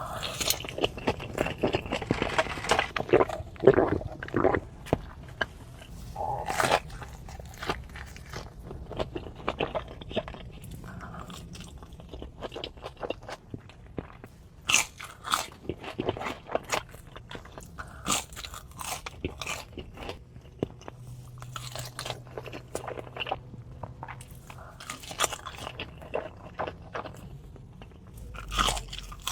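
Close-miked eating: a person biting into and chewing crispy fried chicken, with repeated sharp crunches of the breading at irregular intervals and quieter chewing between them.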